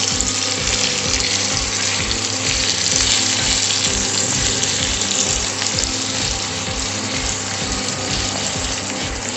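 Sliced onions sizzling steadily as they fry in hot mustard oil in a kadai, with a soft background music beat pulsing underneath.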